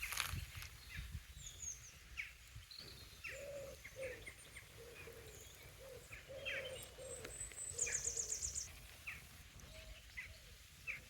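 Wild birds calling: many short high chirps from several songbirds, a quick high trill about eight seconds in, and a lower cooing call repeated through most of it. A brief knock right at the start.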